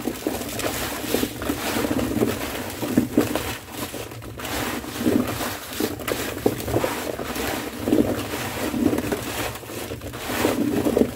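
A hand tossing diced Korean radish cubes coated in salt and sugar in a large bowl. The cubes rustle and knock against each other and the bowl, with surges at each mixing stroke, roughly one a second. This is the radish being mixed with salt and sugar for salting.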